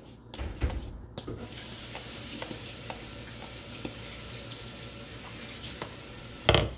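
Kitchen tap running into the sink as a steady hiss for about five seconds. There are a few light knocks before the water starts and a sharp thump as it stops.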